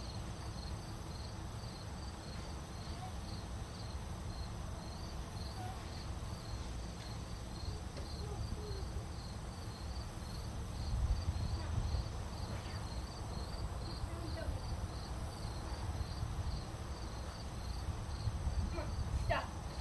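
A cricket chirping steadily, about two high chirps a second.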